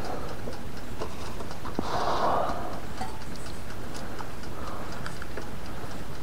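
Mainstays toaster oven ticking faintly and irregularly as it heats with both elements on, over a steady low hum, with one brief soft rustle about two seconds in.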